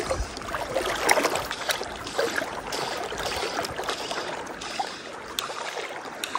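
Fast river current rippling and lapping close by, with many small splashes and clicks of water.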